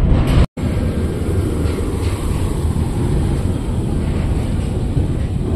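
Water tanker truck running and spraying water over the ground in a steady low rumble and hiss, with wind on the microphone. It begins after a brief break about half a second in.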